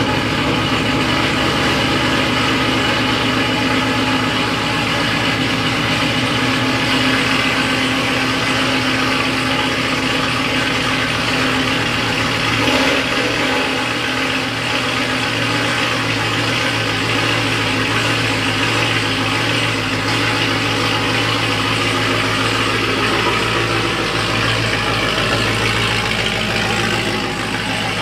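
A car engine idling steadily, heard at the exhaust tip just after start-up.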